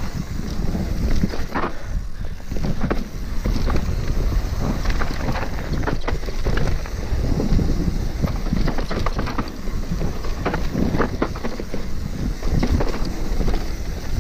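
Wind buffeting the camera microphone over the rumble of a mountain bike descending a dirt trail at speed, with tyre noise on the loose surface and frequent irregular clatter from the bike going over bumps.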